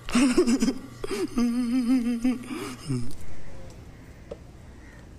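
A voice making a drawn-out, wavering vocal sound with no clear words, with short swoops in pitch, lasting about three seconds and then stopping. After it there is only faint background noise and one small click.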